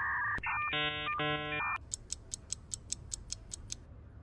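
Electronic sound effect: a few steady synthetic beeping tones lasting under two seconds, then a run of quick, light ticks, about six a second, like a clock ticking.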